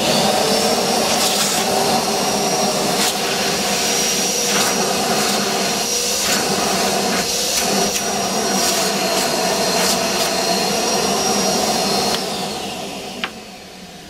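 Kärcher WD 2 (MV 2) shop vacuum switched on and running steadily under suction, a loud motor with a high whine and occasional sharp clicks. It is switched off about twelve seconds in, and the motor winds down with a falling whine.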